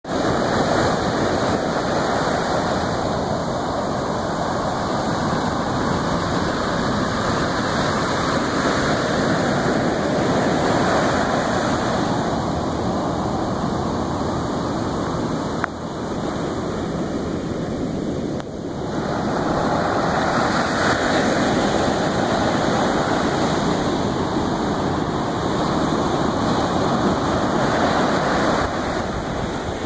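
Ocean surf breaking and washing up a sandy beach: a steady rush of water that swells and eases as each wave comes in.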